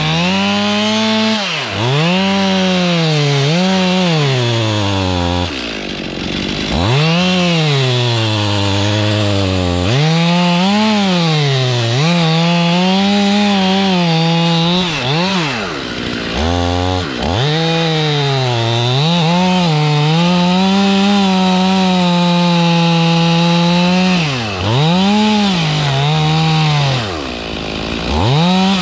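Stihl two-stroke chainsaw revving hard and cutting wood, its pitch climbing to a steady high whine at full throttle and sagging back again and again as the throttle is eased and the chain bites.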